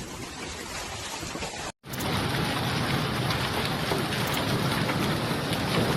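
Storm rain pouring down on surfaces, a steady dense hiss. It cuts out abruptly for a split second just under two seconds in, then comes back louder and steady.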